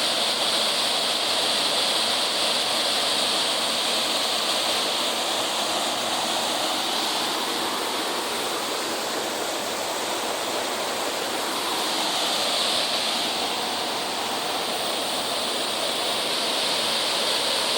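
Waterfall rushing steadily, a dense continuous hiss of falling water.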